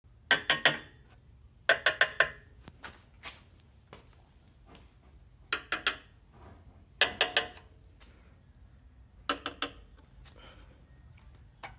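Ratchet wrench clicking in five short bursts of three or four quick clicks each, with pauses of one to three seconds between bursts, as headlight-motor bolts are worked.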